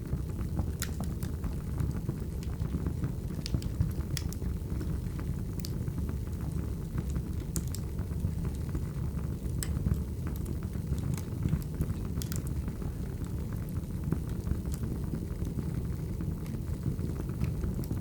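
Wood fire crackling, with irregular sharp pops and snaps over a low, steady rumble of burning logs.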